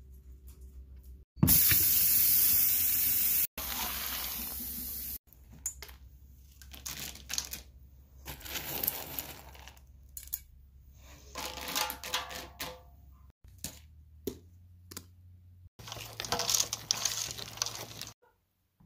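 Dry kibble rattling and clattering into stainless steel bowls as it is poured and scooped, in a series of short cut-together bits with a loud rushing pour about two seconds in. Near the end the food is stirred around in a metal bowl.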